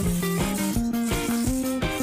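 Background music with a steady beat: guitar and drums.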